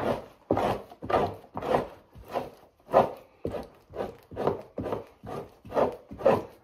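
Two-handled fleshing knife scraped in repeated pushing strokes down a raccoon hide stretched over a PVC fleshing beam, stripping fat and membrane from the skin. The strokes come in a steady rhythm, about two to three a second.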